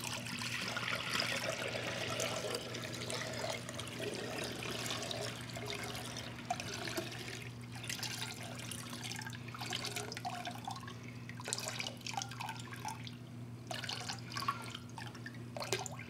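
Water pouring from the two metal hose barbs of a diesel heater's heat-exchanger core into a glass measuring jug, splashing into the water already there as the core drains. The flow is strongest at first and thins to a trickle and drips toward the end.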